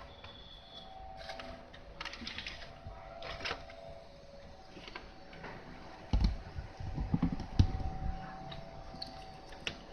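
Light clicking and tapping of multimeter probes and small parts being handled on a workbench, with a few dull bumps from about six seconds in, over a faint steady hum.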